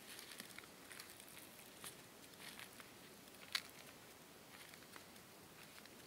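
Faint, irregular crunching and crackling of footsteps on dry leaf litter and twigs, with one sharper snap about three and a half seconds in.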